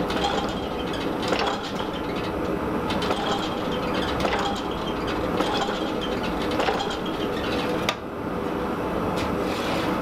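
Massey power hammer running, its ram striking a red-hot steel sword blade in single blows about once a second over the machine's steady running noise.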